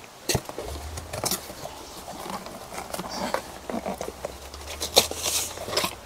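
Packaging being handled: rustling and crinkling of cardboard, paper and plastic, with scattered short clicks and scrapes. A low steady hum runs underneath from about a second in.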